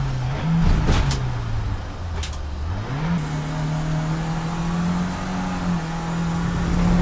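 BMW 318ti Cup race car's four-cylinder engine heard from inside the cabin, its note falling steadily as the car brakes, with a few sharp knocks about one and two seconds in. Just after three seconds the note jumps to a high, strained pitch, a car pulling hard out of a corner, with one short dip in pitch about two-thirds of the way through, like an upshift.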